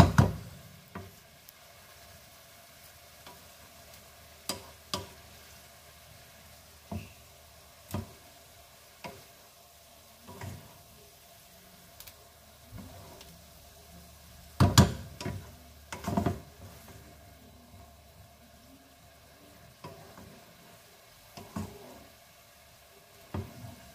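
Wooden spatula stirring and tossing bean sprouts and vegetables in a frying pan, with irregular knocks and scrapes against the pan every second or two; the loudest pair of knocks comes about two-thirds of the way through. A faint steady sizzle runs underneath.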